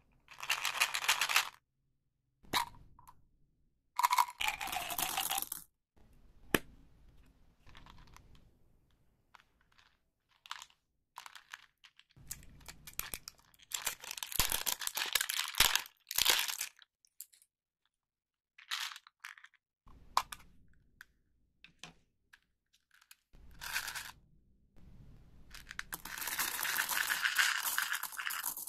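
Candy wrappers being crinkled and torn open in several bursts, with sharp clicks of small candies dropping in between.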